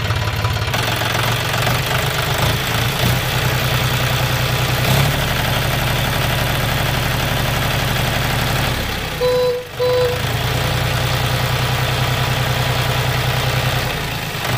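Small battery-driven DC gear motors of a homemade toy tractor running with a steady buzzing whir. The whir dips briefly about two-thirds of the way through, where two short beeps sound.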